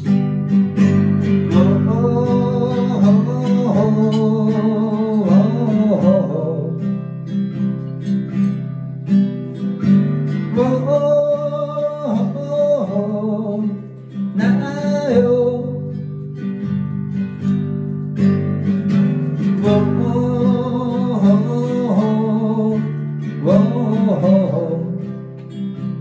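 Acoustic guitar strummed in a steady rhythm, with a man singing over it in three spells of phrases, pausing between them.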